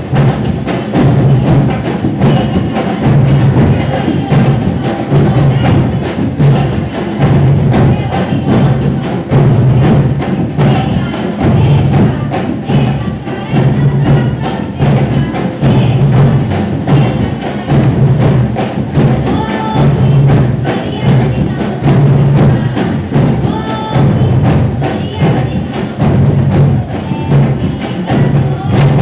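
Batuku music: a steady, loud percussion beat with a low thud repeating, a voice singing over it at times.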